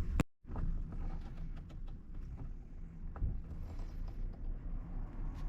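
Small clicks and taps of hand work on wiring and a circuit breaker, over a low steady hum. A sharp click comes just after the start.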